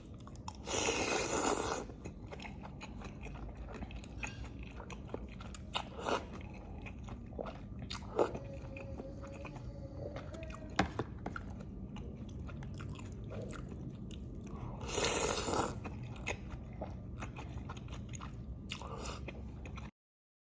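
Close-miked eating of lontong with green chilies: chewing and biting with scattered small clicks and two louder noisy bursts, one about a second in and one near three-quarters through. The sound cuts off suddenly near the end.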